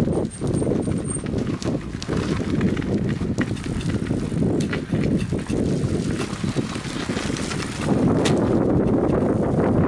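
Recumbent tricycle rolling along a gravel path: wind rumbling on the microphone, with tyre crunch and scattered clicks and rattles from the trike. The wind rumble gets louder about eight seconds in.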